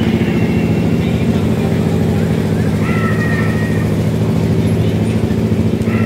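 A loud, steady engine-like drone that does not change, with a few short higher tones over it about three seconds in and again near the end.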